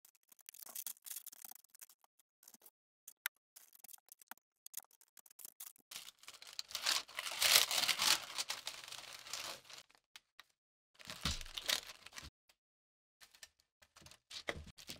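Handling sounds of an epoxy glue-up: faint scraping and ticks of a wooden stick spreading epoxy, then a loud rustle of a terry towel being wrapped around the glued piece from about six to ten seconds. A brief clatter with a dull thud follows about eleven seconds in, and small clicks of a bar clamp being set come near the end.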